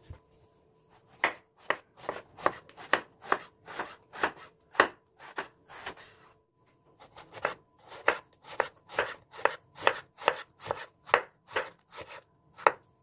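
Kitchen knife slicing a peeled brinjal (eggplant) into thin rounds on a wooden cutting board: a run of sharp chops, about two a second, with a short pause midway.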